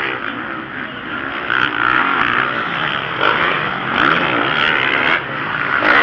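Motocross bikes racing on a dirt track, their engines revving hard, with the pitch rising and dropping again and again as riders accelerate and shift.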